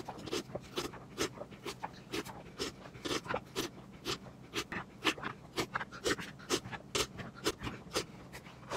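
A person slurping milk from a bowl: quick, uneven slurps about three a second.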